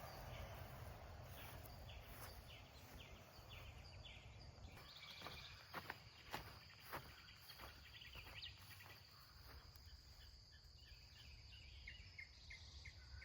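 Faint outdoor ambience, near silence: a bird chirping in quick runs of repeated notes, joined about four seconds in by an insect's steady high trill. A few soft clicks fall around the middle.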